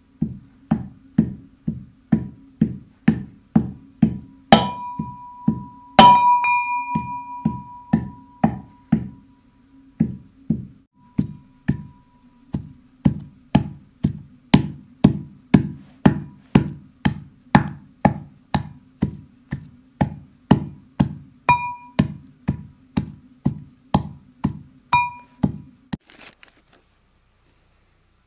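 Brass mortar and pestle pounding raw lamb, steady strikes at about two a second. Now and then the pestle catches the metal and the mortar rings with a bright note that hangs on for a moment, loudest a few seconds in. The pounding stops near the end.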